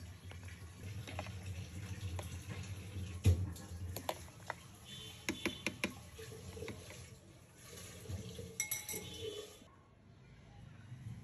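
A metal fork clinking and scraping against the inside of a blender jar as the blended mixture is worked, with a string of sharp clinks, the loudest about three seconds in.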